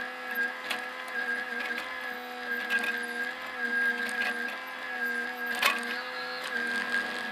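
Bobcat mini excavator's diesel engine running steadily, heard from inside the cab, its pitch dipping slightly now and then as the boom and bucket work. Scattered clicks and knocks go with it, with one sharp knock about two-thirds of the way through.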